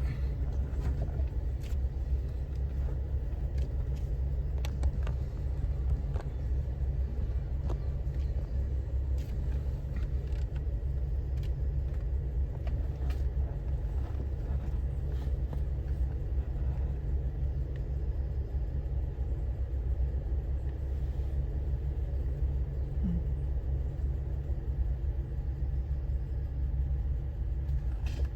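Off-road vehicle running steadily along a dirt mountain trail with a low, even rumble, and scattered light clicks and knocks throughout.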